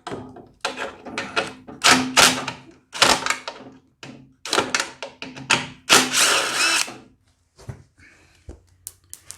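Power drill run in a series of short bursts, its motor whirring, as it backs out the two 5/16 bolts that hold a snowblower's headlight lens assembly. A few sharp clicks follow near the end.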